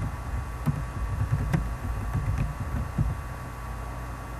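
Scattered keystrokes on a computer keyboard, short clicks with dull knocks, over a steady low hum; the typing stops about a second before the end.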